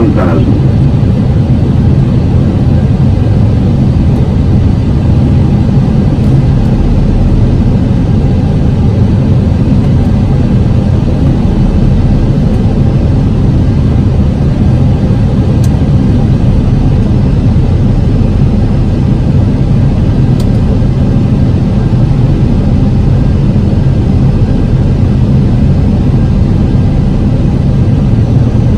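Steady cockpit noise of an Airbus A320 descending on approach: a loud, even low rush of airflow and engine hum that does not change. A couple of faint ticks come about halfway through.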